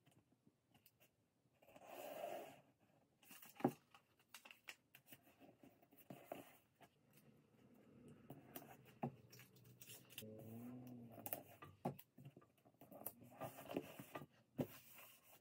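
Faint handling of paper pattern pieces: tape pulled and torn, with light rustles, scrapes and a few sharp clicks as the panels and ruler are set down and pressed flat.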